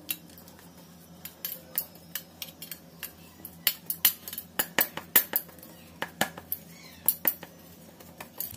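Light metallic clicks and clinks against a stainless steel bowl, at irregular intervals, a few each second, as a hand squeezes and mashes boiled potatoes in it.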